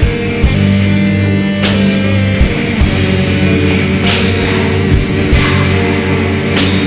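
Slow doom metal: heavily distorted guitars hold low sustained chords over drums, with a cymbal crash every couple of seconds.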